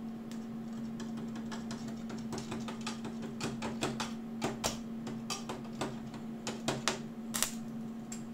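Aluminium stick-welding electrode being scratched and tapped on the aluminium plate to strike an arc, giving only scattered short crackles and snaps as the arc refuses to catch: this electrode strikes very badly. A steady hum runs underneath.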